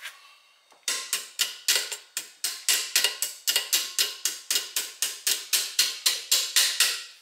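Smartphone alarm going off: a quick, evenly repeating chime-like tone, about four notes a second, starting about a second in.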